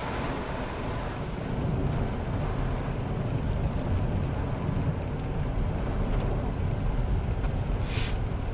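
Steady low rumble of a car driving on a snow-covered road, heard from inside the cabin, with a brief hiss about eight seconds in.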